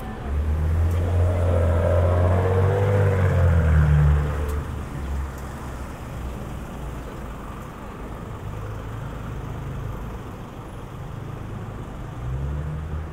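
A car passing close by, a loud low engine-and-tyre rumble for the first four seconds or so that then fades into quieter street noise. A smaller low vehicle swell comes near the end.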